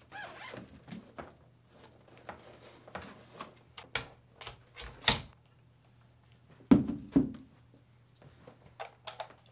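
A SmallRig RC220B LED video light and its light stand being handled and set up: scattered clicks, knocks and rattles of metal and plastic parts, with louder knocks about five seconds in and near seven seconds.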